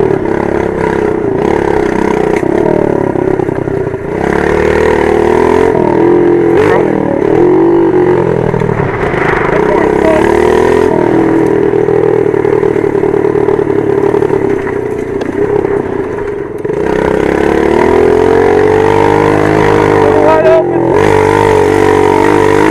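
A 110cc dirt bike's engine running under way, its pitch rising and falling with the throttle as it is ridden, easing off briefly about four seconds in and again around sixteen seconds before picking up again.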